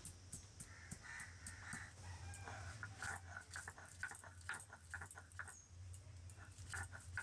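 Stone roller crushing and grinding green chillies, garlic and ginger on a stone grinding slab (sil-nora): a run of short gritty crunches and knocks of stone on stone. A hen clucks over it.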